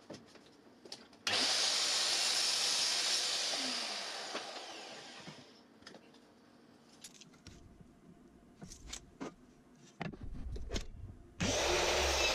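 DeWalt sliding mitre saw cutting pine bed slats to length: the motor starts suddenly about a second in, runs, then winds down over a few seconds. A few clicks follow as the wood is handled, and the saw starts again near the end.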